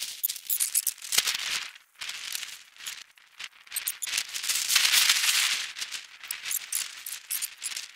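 Fast-forwarded walking noise: a dense, irregular rattling and rustling of footsteps and handling, loudest in the middle.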